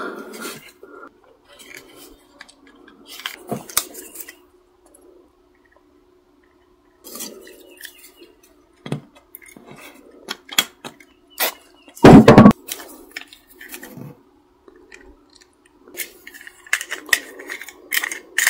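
Small hard plastic pieces of a broken camera mount handled and fitted together, with scattered light clicks and taps. About two-thirds of the way through comes one short, loud hiss from an aerosol spray can, the loudest sound here.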